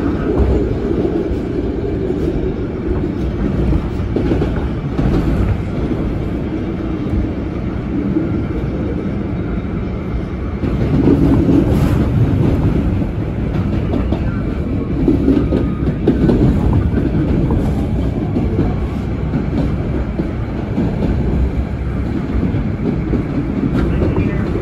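PATH PA5 subway train running at speed, heard from inside the car: a steady rumble of wheels on rail with clicks over the rail joints, growing louder for a moment about eleven seconds in.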